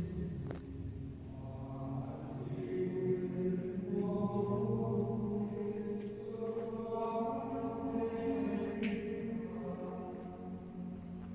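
Background music of slow, long-held chant-like tones, with a brief swooshing sweep about half a second in and another near the end.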